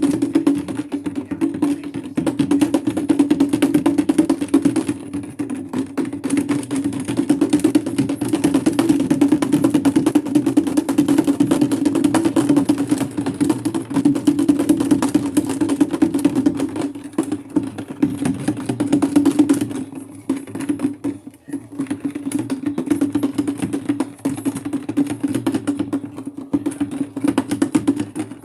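Maytag washing machine running on its delicate cycle: a steady hum with rapid, continuous rattling and clicking.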